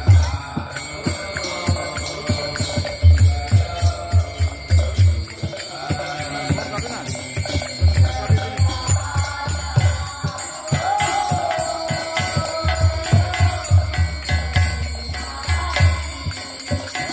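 Devotional kirtan: singing over a khol (mridanga) drum and fast, even clashing of kartals, small brass hand cymbals. The drum strokes come in loud runs that drop away around the middle and near the end while the cymbals keep time throughout.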